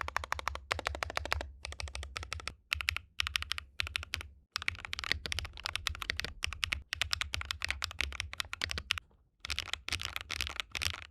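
Typing on a mechanical keyboard fitted with Sillyworks × HMX Waverider V2 tactile switches: fast runs of keystrokes broken by a few short pauses.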